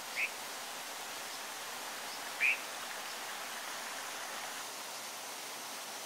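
Steady rush of stream water, with two short, sharp bird calls: one just after the start and a louder one about two and a half seconds in.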